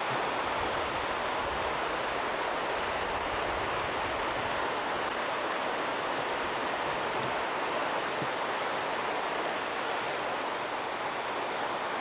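River water rushing steadily, an even wash of flowing water.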